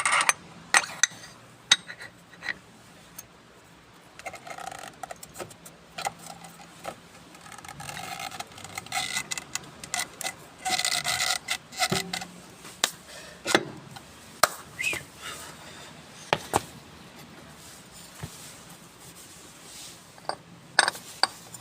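Hand rubbing and scraping at an object while cleaning it, with scattered sharp clicks and knocks as parts are handled. The rubbing is heaviest about halfway through.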